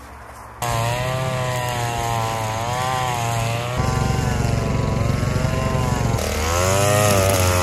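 Small petrol engine of a grass cutter running, starting abruptly about half a second in. Its pitch wavers up and down as it works, with a shift in its low note about four seconds in and again near the end.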